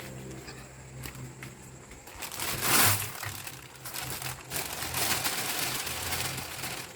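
Plastic crinkling and rustling in handling, with small clicks: a loud burst about two and a half seconds in and a longer stretch near the end, over a low steady hum.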